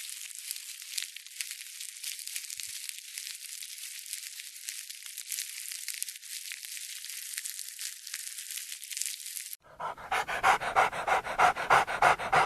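A crackling, hiss-like noise, then an abrupt cut near the end to a dog panting rapidly, about four breaths a second.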